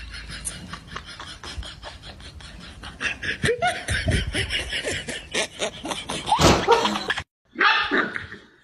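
People laughing in quick bursts that get louder partway through. Near the end, after a short break in the sound, a puppy makes short yips and whines.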